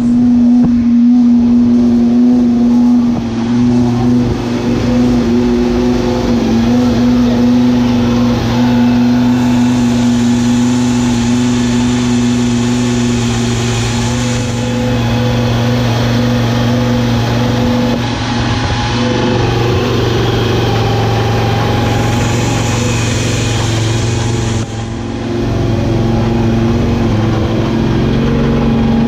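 Volvo S40 TWR supertouring race car's five-cylinder engine running steadily, its pitch held nearly constant with small shifts in level.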